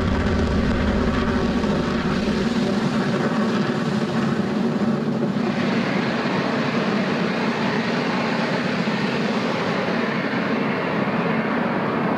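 Falcon 9 first stage's nine Merlin engines roaring steadily during ascent. The deepest rumble drops away a couple of seconds in, and the roar turns brighter and hissier about five seconds in.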